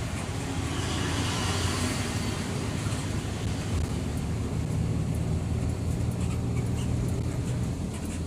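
Steady engine and road noise of a vehicle driving along, a low even hum with a rushing haze above it.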